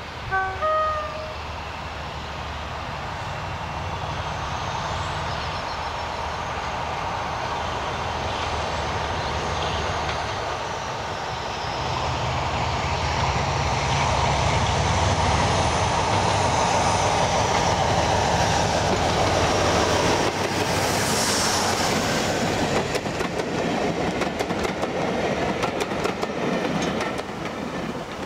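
BR Class 47 diesel locomotive hauling coaches past under power: its engine note builds as it approaches and is loudest as it passes, then the coaches' wheels click over the rail joints as the train moves away. A short horn blast about a second in.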